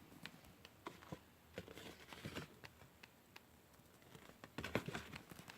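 Faint clicks, light knocks and rustles of small items being handled and set down, with a louder cluster of knocks near the end.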